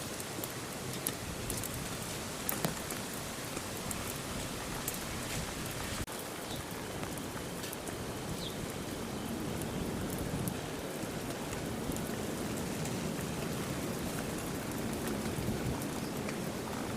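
Steady rain falling, an even hiss with scattered sharp ticks of drops hitting nearby surfaces.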